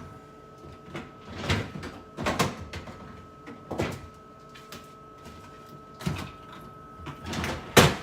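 Items being put back into a refrigerator: about five short scrapes and knocks of containers and sliding fridge parts, with a faint steady high whine underneath.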